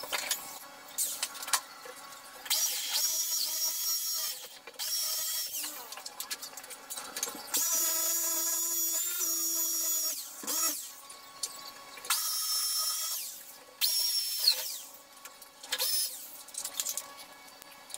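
Corded electric drill drilling into a window frame, run in about six short bursts of one to three seconds each. The motor whine winds down after each burst.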